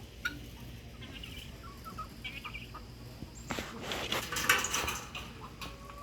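Chickens clucking, with short calls early on and a louder stretch of noise from about three and a half to five seconds in.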